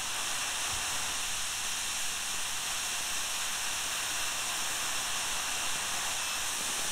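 Jet Central Rabbit model gas turbine running steadily at about 121,000 RPM: an even jet hiss with a steady high band, no change in pitch or level. It is being held at constant throttle to check for surging, which does not show here.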